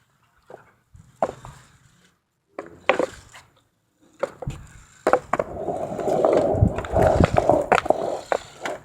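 A few scattered knocks, then from about halfway through a skateboard's wheels rolling on pavement: a continuous rough rumble with clicks and clacks in it.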